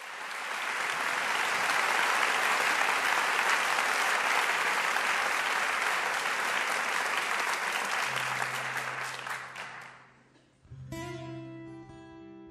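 Theatre audience applauding, the clapping dying away after about ten seconds. A low held note comes in as it fades, and acoustic guitar chords begin just after.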